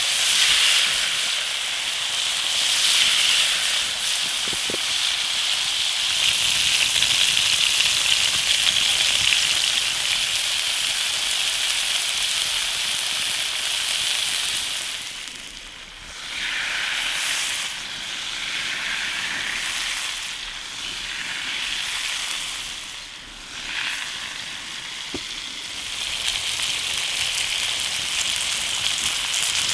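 Food sizzling as it fries in a pan: a steady sizzle that eases twice, briefly, about halfway through and again a few seconds later.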